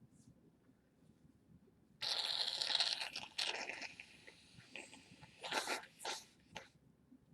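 Rustling and crinkling that starts suddenly about two seconds in and lasts about a second and a half, followed by softer scattered rustles and a few sharp crackles.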